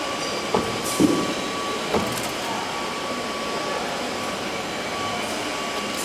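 Steady machine hum with a faint steady whine, and a few short knocks and clicks, about half a second, one and two seconds in, as wires are pulled out of a control cabinet's terminal blocks and wiring ducts.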